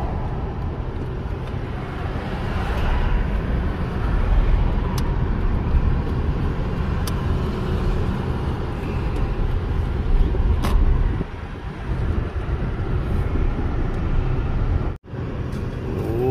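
Car driving at low speed, heard from inside the cabin: a steady low rumble of engine and tyres, with a few faint clicks.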